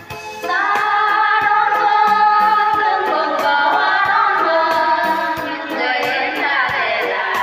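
Three women singing a Vietnamese song together over instrumental accompaniment with a steady beat; after a brief break they hold a long note from about half a second in.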